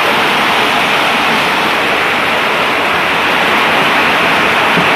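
Hailstorm: hail and rain pouring down heavily, a loud, dense, unbroken noise.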